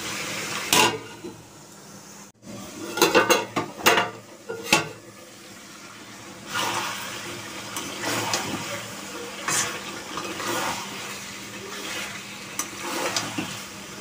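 Chicken frying and sizzling in hot oil in a metal kadai, with sharp metal clanks and scrapes against the pan, clustered about three to five seconds in.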